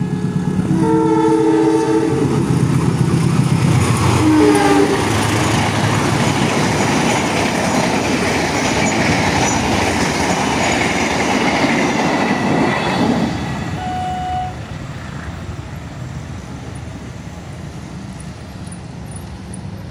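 Diesel locomotive's multi-tone horn sounding short blasts as a passenger train approaches. The train then passes at speed with a loud, steady rush of wheels on the rails, which drops away after about thirteen seconds.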